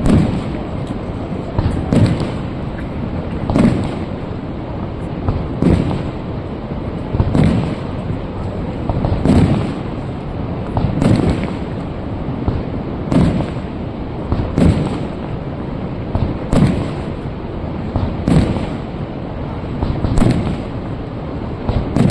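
Aerial firework shells bursting in the sky, a steady series of sharp reports about two seconds apart, over a constant rushing noise.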